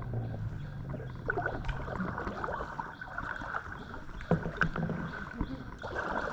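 Water lapping and splashing around a kayak, with a few sharp knocks against the hull.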